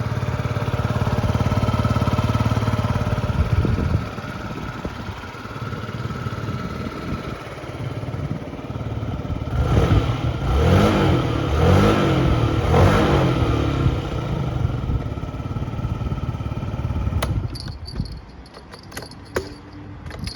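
Yamaha Jog SA36J scooter's 50cc four-stroke engine running, dropping to idle about four seconds in, then blipped three times in quick revs and shut off near the end, followed by a few clicks.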